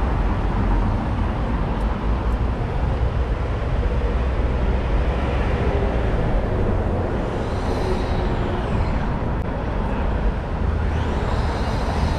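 Busy city street traffic: a steady rumble of engines and tyres from buses and cars, with a vehicle passing close by about eight seconds in and another near the end.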